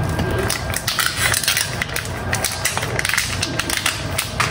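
Shrimp frying in melted butter in a skillet, with noodles cooking in a little water in a second pan: a steady sizzle full of small crackling pops.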